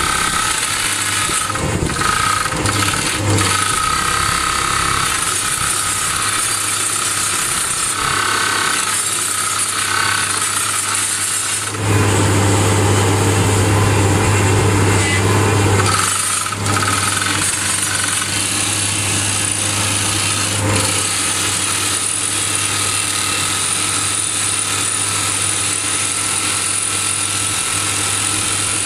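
SOOSAN STD14E top-hammer drill rig drilling rock, its TD45 hydraulic drifter hammering and turning the drill string over the steady run of the rig's engine. About twelve seconds in, the sound grows louder for some four seconds, then drops back.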